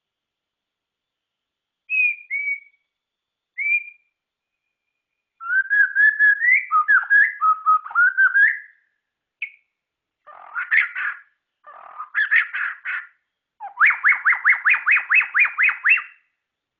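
White-rumped shama (murai batu) singing: two short clear whistles, then longer warbling phrases of varied notes. Near the end comes a fast run of about a dozen repeated notes, several per second.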